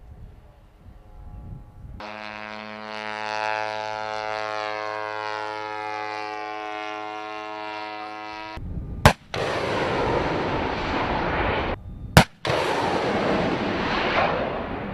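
A steady pitched drone holds for about six seconds, then FIM-92 Stinger missiles are fired: a sharp bang about nine seconds in and another about three seconds later, each followed by a loud rushing noise from the launch.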